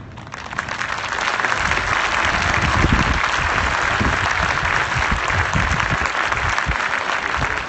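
Large stadium crowd applauding, swelling about half a second in and then holding steady, with irregular low thuds under it.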